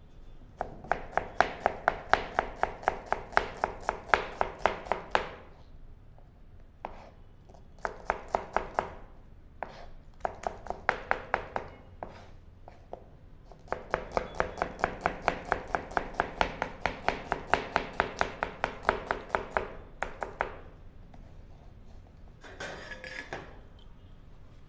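Kitchen knife chopping a red onion on a plastic cutting board: fast, even knocks of the blade on the board, about four or five a second, in several runs with short pauses. A brief rougher scraping sound near the end.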